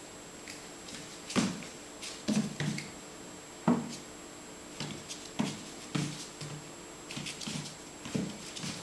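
A West Highland white terrier puppy's paws thudding and tapping on a laminate floor as she hops and pounces: about a dozen irregular knocks, two of them louder in the first four seconds.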